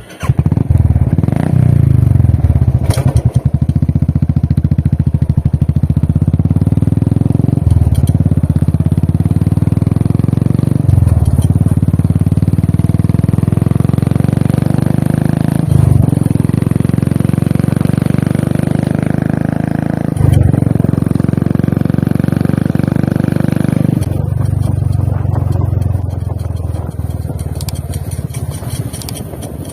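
Royal Enfield Classic 350 single-cylinder engine and exhaust running under way, with brief dips in the note four times during the ride. About three quarters of the way through it eases off and runs quieter.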